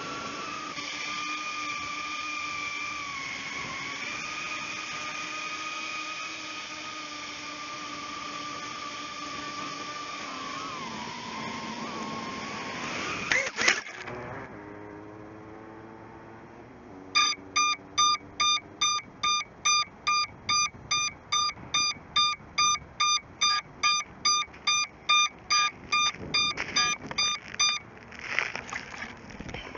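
A small 135 mm FPV quadcopter's brushless motors whine steadily, their pitch shifting with the throttle. About thirteen seconds in comes a sharp impact as the quad crashes, and the motors stop. Then the quad's buzzer beeps about twice a second for some ten seconds, a locator beeper sounding after the crash, with handling noise near the end.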